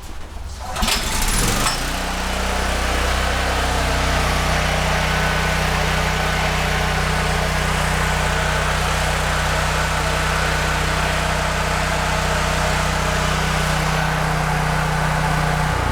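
Honda generator's GX390 single-cylinder engine being started, catching about a second and a half in. It then runs steadily at an even speed, healthy and with a full crankcase of oil.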